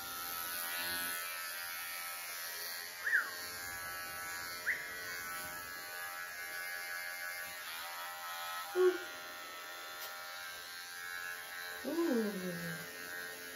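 Electric pet grooming clippers running with a steady buzzing hum. A few short squeaky sounds come over it.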